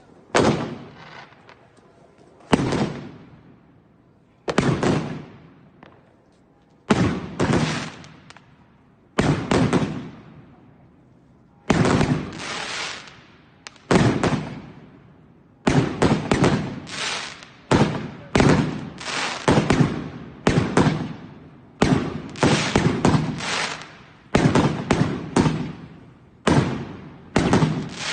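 Fireworks going off: a series of sharp bangs, each with a fading rumble. They come about every two seconds at first, then roughly once a second through the second half.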